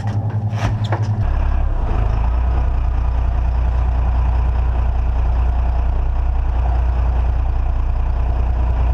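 Fishing boat's engine running steadily; about a second in its note drops lower and grows stronger, then holds steady as the boat moves along.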